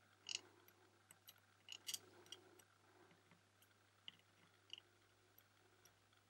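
Faint, irregular small clicks and crackles of hand soldering: a soldering iron melting solder wire onto LED joints on a circuit board, with the tip scraping against the pads. The clicks are busiest in the first couple of seconds and thin out after that.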